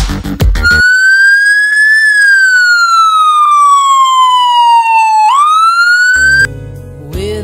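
Electronic dance music with a heavy beat cuts off, and a loud siren wails in its place: one tone that rises, falls slowly for about three seconds, then climbs quickly again before stopping. A slower music track starts near the end.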